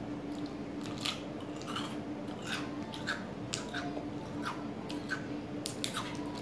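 Mouth sounds of someone eating a freezer ice pop: irregular small clicks and smacks of chewing and sucking on the ice, over a steady low hum.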